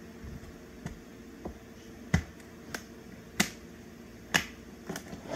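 French horn case being handled as the horn is packed away: a series of about seven sharp clicks and knocks, spaced roughly half a second to a second apart, the loudest a little after two seconds and about three and a half seconds in.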